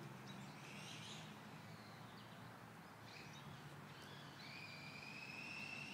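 Faint whine of an electric RC truck's motor, heard at a distance, rising slowly in pitch as the truck speeds up from about two-thirds of the way in, over a quiet outdoor background.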